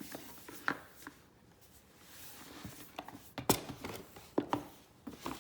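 Keyboard kit parts and packaging being handled: a few sharp clicks and knocks, the loudest about three and a half seconds in, with a soft rustle between them.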